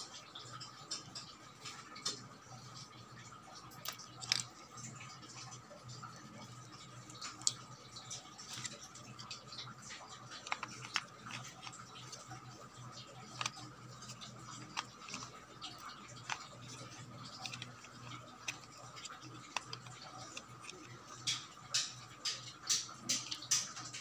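Hands handling an electric kettle's plastic base and power cord: scattered small clicks, taps and rustles of plastic and wire, coming more often near the end, over a steady faint hum.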